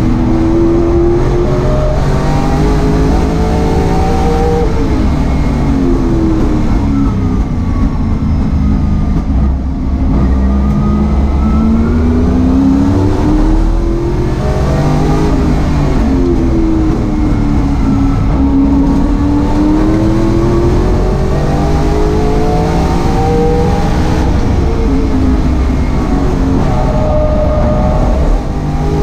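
Holden Commodore saloon race car's engine, heard from inside the stripped cabin at racing speed. The engine note climbs in pitch several times and drops back between climbs, over steady road and wind noise.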